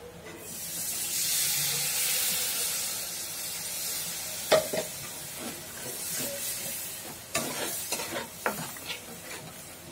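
Water poured into a kadhai of hot, oil-roasted masala, sizzling loudly at once and then dying down over several seconds. A metal spatula stirs and scrapes the pan in sharp clicks about halfway through and again near the end.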